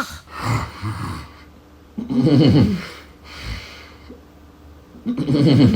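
Snoring: two loud snores about three seconds apart, each under a second long, with quieter breathing sounds between them.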